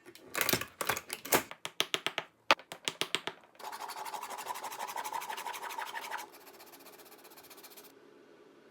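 Junker & Ruh SD28 sole-stitching machine sewing a boot's outsole: a few seconds of irregular sharp clacks, then a fast, even run of stitches with a hum. It turns quieter about six seconds in and stops near the end.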